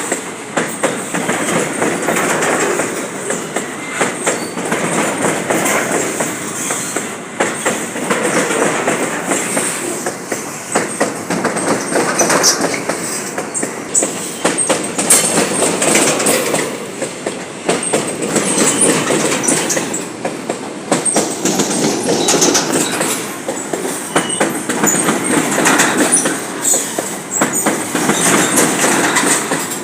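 Train cars rolling past, wheels clacking steadily over the rails, with brief high wheel squeals here and there.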